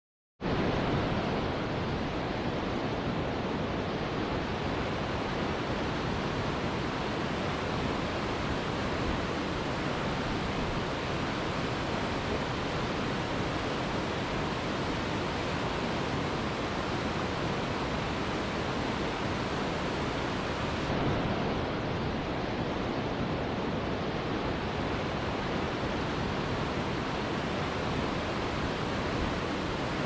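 Steady rushing of a waterfall, an even unbroken roar of falling water that starts about half a second in.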